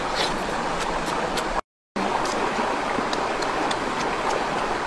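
Steady rushing of a forest stream, with a brief gap of dead silence about one and a half seconds in.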